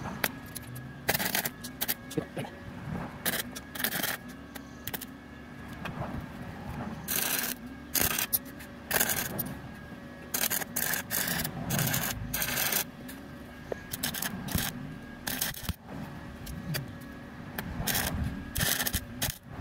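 Wire-feed welder arc crackling in repeated short bursts as a small steel piece is stitch-welded on, over a steady hum. Near the end a steel wire brush scrubs the fresh weld.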